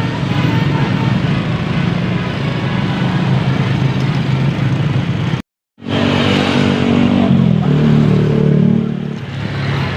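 A bus's diesel engine running loudly close by. The sound cuts out abruptly for a moment about halfway through, then comes back with the engine's pitch stepping up and down near the end.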